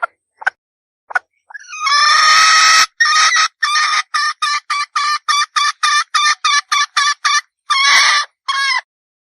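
A red junglefowl hen cackling: a few short notes, a drawn-out call, then a quick run of short clucks about three a second, ending with two longer calls.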